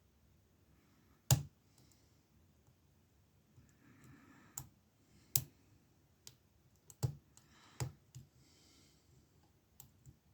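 Lock pick and tension wrench working the pin tumblers of an ABUS 65/50 padlock while a false set is being worked: scattered sharp metallic clicks a second or more apart, the loudest about a second in, with faint scraping between them.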